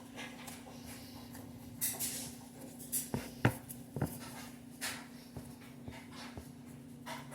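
Hands pressing and spreading pizza dough in a pan: soft, scattered squishing and rustling strokes, with two sharp taps against the pan about halfway through, over a steady low hum.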